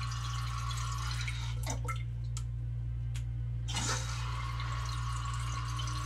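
Water trickling and dripping in a toilet tank as a hand moves about in it at the flapper, with a few small splashes and knocks. The tank keeps running because the flapper at the bottom isn't sealing.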